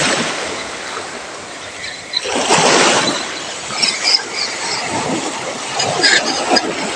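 Sea surf washing over a rocky shore, with a surge of water about two seconds in.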